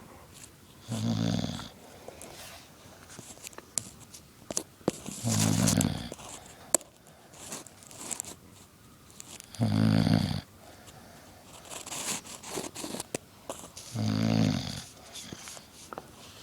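English bulldog snoring: four loud, low snores about four seconds apart, with faint clicks between them.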